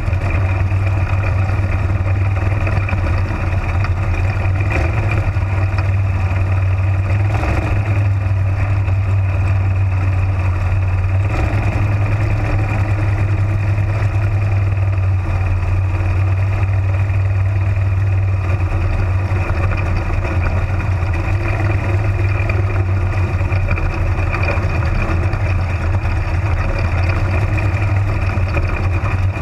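Florida Spec Modified sling shot race car's engine at full racing speed, heard from the open cockpit: it runs at a nearly constant pitch lap after lap, wavering briefly about seven and eleven seconds in.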